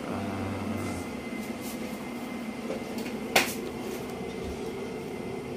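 Steady hum of a window air conditioner, with one sharp knock about three and a half seconds in as the boxes and bags are handled.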